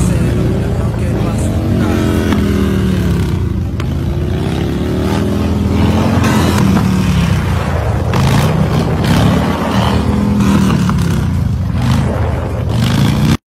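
Motorcycle engine running hard during a wheelie, its pitch rising and falling several times as the throttle is worked, over road and wind noise.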